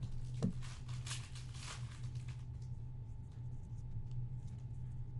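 Trading cards and foil pack wrappers being handled on a table: a soft knock about half a second in, then a couple of seconds of rustling and brushing, over a steady low hum.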